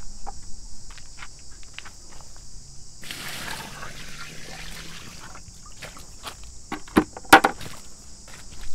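Water from a bucket splashed over a fish lying on a wet unhooking mat, a wash of about two seconds starting about three seconds in. Two sharp knocks follow near the end. Insects chirr steadily throughout.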